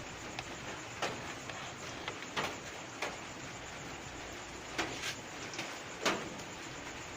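A handful of light clicks and knocks, about seven, spaced irregularly over a steady background hiss: small tools and parts being handled at an electronics repair bench.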